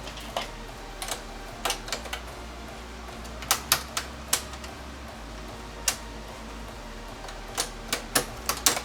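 Irregular sharp clicks and taps of small tools and parts being handled during a game-console repair, about fifteen in all and bunched into three clusters.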